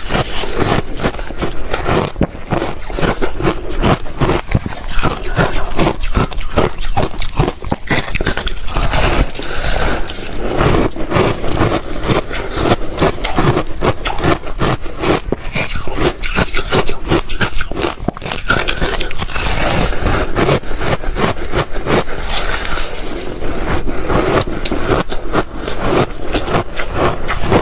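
Ice being crunched and chewed close to the microphone: a dense, continuous run of sharp cracks and crunches.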